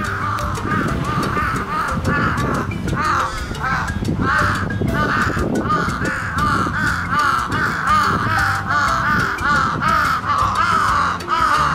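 A pair of parent crows cawing continuously, several caws a second and overlapping: alarm calls telling an intruder to keep away from their newly fledged chick.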